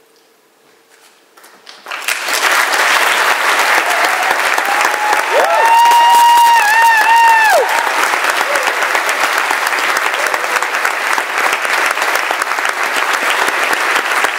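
Audience applauding, breaking out about two seconds in after a near-quiet moment. A long high-pitched cheer rises over the clapping for about two seconds midway.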